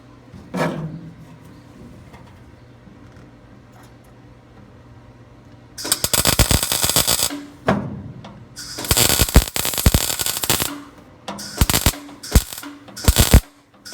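Welding arc crackling and spitting in about five short bursts, starting about six seconds in: tack welds laid on a thin sheet-metal patch panel in a car body.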